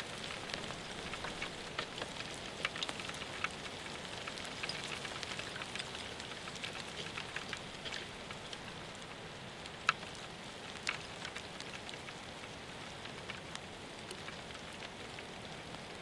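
Rain falling, with scattered drops ticking close to the microphone over a steady hiss. The drops thin out in the second half, with one sharper tick about ten seconds in.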